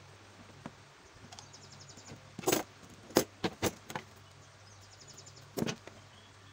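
Scissors snipping through a black sandal sole sheet: sharp clicks about two and a half seconds in, a quick run of snips between three and four seconds, and another near the end. Under them a steady low hum and faint, repeated high chirping.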